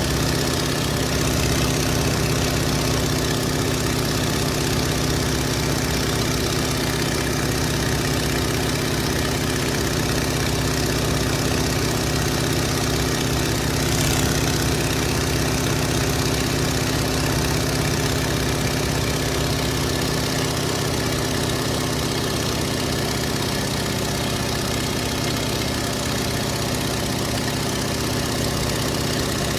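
Stearman biplane's radial engine idling steadily, heard from the cockpit.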